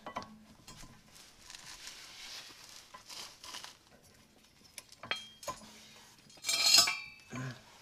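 Metal brake parts clinking and rattling as a brake caliper with its pads is handled and fitted, in scattered light clicks, with a louder clatter about six and a half seconds in.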